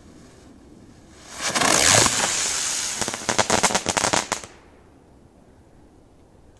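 Small 'airplane' flying firework igniting about a second in with a loud rushing hiss as it takes off, then a rapid run of crackles that cuts off suddenly about three seconds later.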